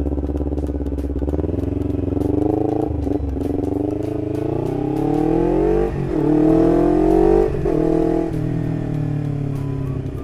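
Kawasaki Ninja 250 FI parallel-twin motorcycle engine accelerating through the gears, recorded on the bike. The pitch climbs in three pulls, dropping briefly at the shifts about three and six seconds in. Near eight seconds the rider rolls off and the engine settles to a lower, steadier note.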